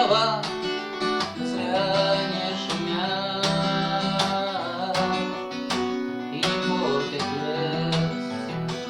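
Acoustic guitar strummed in a steady rhythm, an instrumental passage between verses of a sung song.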